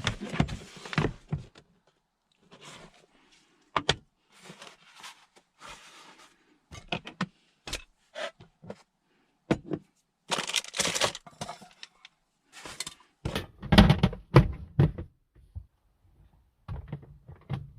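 Scattered thuds, clicks and rustling of gear being handled and set down in the cramped space of a car, with a louder cluster of knocks about two thirds of the way through.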